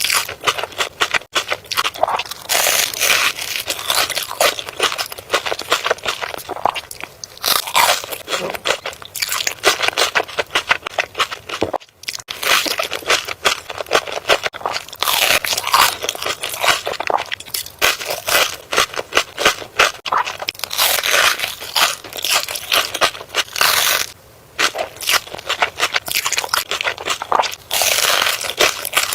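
Close-miked eating of crunchy food: a rapid, continuous stream of crisp crunches from biting and chewing, with a couple of brief pauses.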